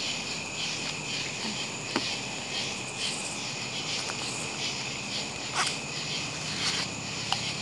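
A chorus of night insects, crickets, chirping steadily with a fast pulsing rhythm, with a few faint clicks scattered through.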